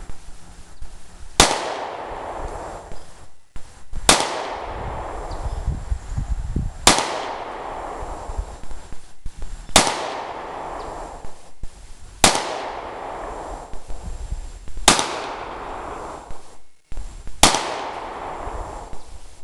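FN Five-seveN pistol firing 5.7x28mm rounds: seven shots spaced about two and a half to three seconds apart, each trailing off over a second or more.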